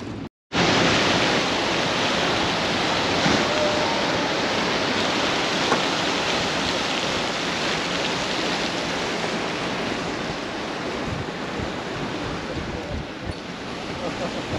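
Steady rushing noise of wind and ocean surf that starts abruptly after a brief dropout and eases slightly toward the end.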